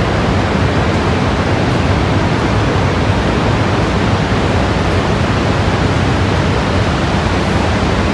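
Steady, deep roar of Niagara's Horseshoe Falls, heard from inside the concrete tunnels behind the falls.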